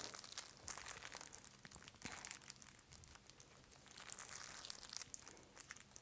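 Packaging of a pack of tanzaku paper strips crinkling as it is handled. Faint, irregular rustles and small clicks come and go, with a lull around the middle.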